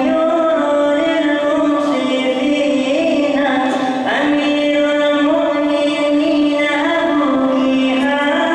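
A solo voice chanting a slow melodic line in long held notes that step up and down, with a new phrase beginning about four seconds in.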